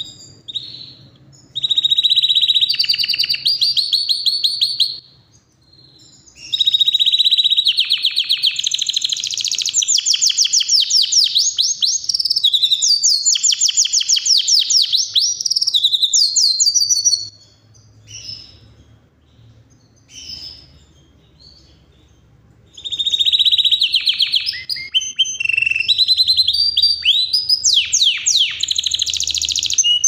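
Yorkshire canary singing long phrases of fast trills and rolls. The song comes in three long runs, with short scattered chirps in a pause about two-thirds of the way through.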